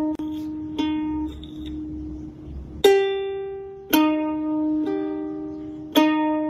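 Ukulele strings plucked by a cat's paw: single notes ring out one at a time, about six irregular plucks, some damped short as the paw rests on the strings.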